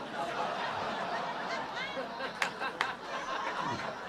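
Audience laughing at a stand-up punchline, a mass of chuckles with separate individual laughs standing out.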